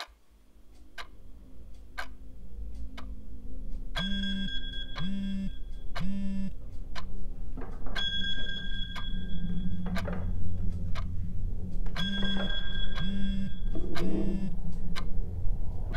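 A clock ticking about once a second while a mobile phone rings every four seconds, each ring a short high trill about a second long with three short vibration buzzes against a hard surface. A low rumble swells gradually underneath.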